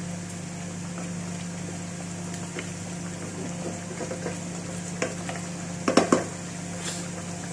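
Chicken and chopped tomatoes simmering and sizzling in a pot while a spatula stirs them, the tomatoes cooking down into a gravy. A pair of sharp knocks of the spatula against the pot comes about six seconds in, with a few lighter taps around it.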